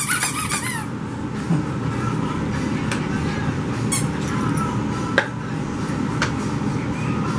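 French Bulldog puppies at play: a burst of high-pitched squeaking in the first second, then a steady low background noise with a few light knocks.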